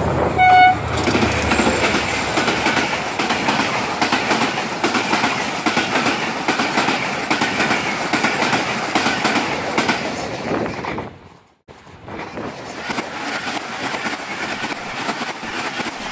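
Mehran Express passenger train rushing past a station platform at speed, its coach wheels clattering over the rail joints under a steady roar. A brief horn toot sounds about half a second in. The sound drops out abruptly for about half a second a little past the middle, then resumes.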